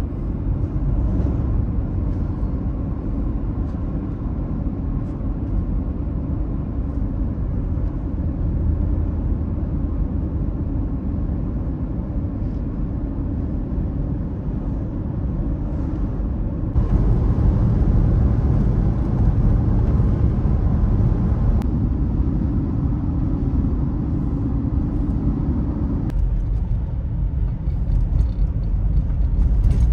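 Steady road and engine rumble heard from inside a car's cabin while driving at highway speed. It steps up abruptly about two-thirds of the way through and drops back a little near the end.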